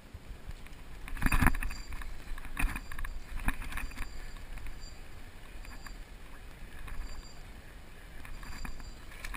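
Kayak paddling: a few irregular splashes and knocks of the paddle in the water and against the hull, the loudest about a second in.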